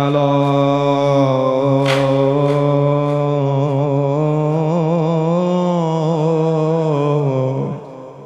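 A man singing a Persian religious lament into a microphone, holding the final syllable of 'Karbala' as one long note for about seven and a half seconds. The note wavers in ornaments in the middle and stops near the end.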